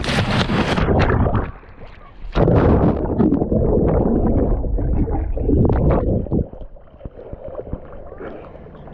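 A person plunging into lake water: a loud splash lasting about a second and a half, then muffled churning and bubbling heard with the camera underwater, settling to quieter sloshing after about six seconds as he surfaces and swims.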